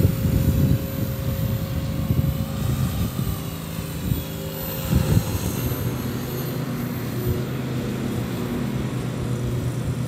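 Walkera V450D03 radio-controlled helicopter in flight: a steady rotor hum, with gusty wind rumbling on the microphone.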